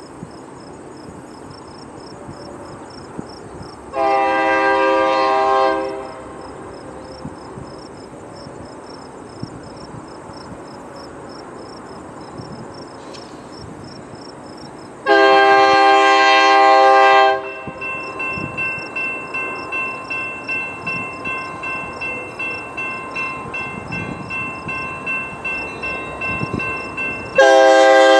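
Diesel freight locomotive's air horn blowing for a grade crossing as the train approaches: a long blast about four seconds in, a longer one at about fifteen seconds, and another starting near the end. Right after the second blast the crossing warning bell starts ringing at about two strokes a second, with crickets chirping faintly underneath.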